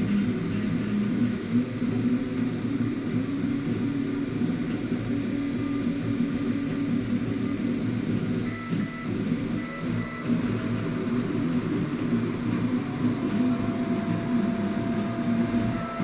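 Clone of an Ultimaker-style 3D printer running, its stepper motors humming and whining with changing pitch as the axes move. Short higher tones come and go, and a steady tone starts near the end.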